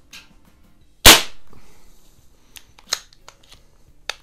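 A Webley Nemesis .177 CO2 pellet pistol fires a single shot, a sharp crack with a short ring-off in the garage. A few light clicks of the pistol being handled come before and after it.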